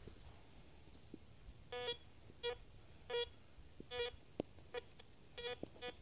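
Metal detector giving short, mid-pitched electronic beeps, five or so, one every half second to a second, as its coil sweeps back and forth over buried metal, with a few sharp clicks in between.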